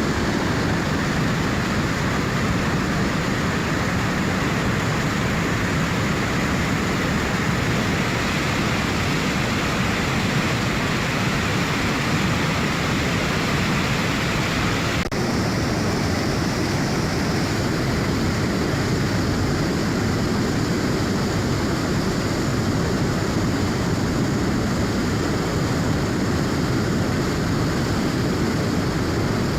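A river in high flow rushing and churning, a steady, continuous wash of water noise with no let-up. About halfway through there is a faint tick, and the sound turns slightly brighter from there on.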